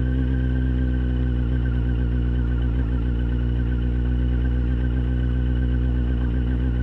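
Road motorcycle's engine running at a steady, unchanging pace while riding slowly along a dirt track.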